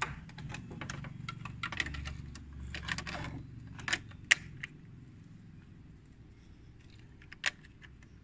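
Small plastic toy pieces clicking and clattering as they are handled, a quick run of clicks over a low rumble of handling for the first four seconds, then a few scattered clicks.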